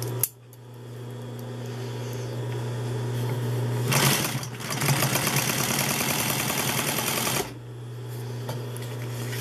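Consew 206RB walking-foot industrial sewing machine, its motor humming steadily, then stitching a seam at speed for about three and a half seconds from about four seconds in before stopping. The test seam is sewn with the top thread tension backed off too loose.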